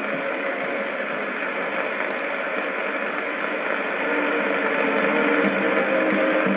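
Weak AM medium-wave broadcast on 1652 kHz heard through a communications receiver: heavy static hiss, with faint music notes showing through underneath. The signal comes up a little about four seconds in.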